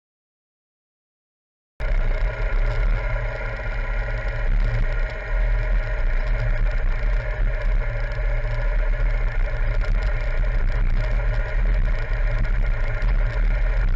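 Silent for the first couple of seconds, then a BMW R1200GS Adventure's boxer-twin engine running steadily under way, with a heavy low rumble.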